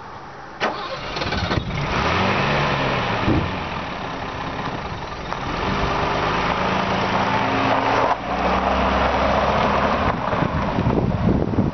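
1968 Mercedes-Benz 280SE's straight-six engine running after sitting for 13 years. After two brief knocks it revs up, settles, then rises in pitch as the car pulls away and drives past.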